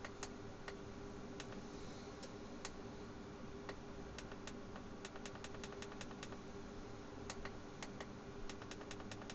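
Computer keyboard keys pressed one at a time, faintly and at an uneven pace, with a quick run of about eight presses around five seconds in. A faint steady hum sits underneath.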